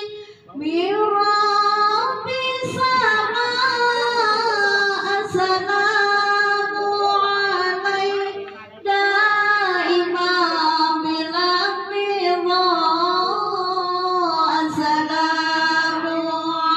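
A woman chanting into a microphone in long, wavering melodic phrases, with a short pause for breath near the start and another about halfway through.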